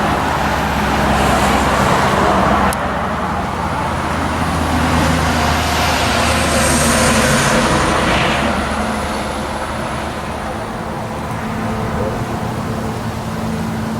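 A vehicle passing by: a broad rushing noise over a steady low hum, swelling to a peak about halfway through with a faint high whine, then easing off.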